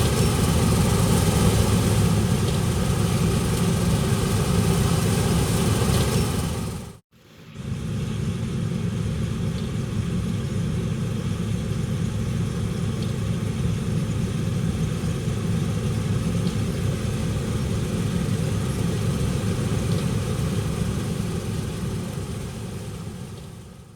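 Diesel engine of large farm machinery running steadily. It cuts out abruptly about seven seconds in, resumes much the same, and fades out near the end.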